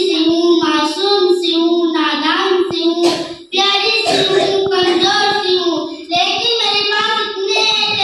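A girl's voice singing a verse in Urdu into a microphone, in a held, wavering melody, with a short break about three and a half seconds in.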